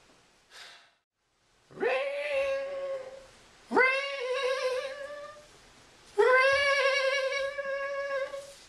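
A high voice singing three long notes, each sliding up at the start and then held steady.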